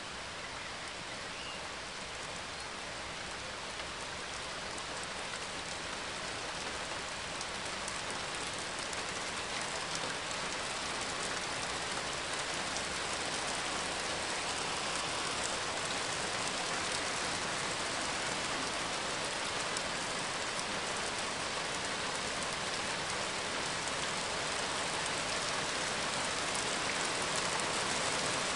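Steady rain falling, slowly growing louder.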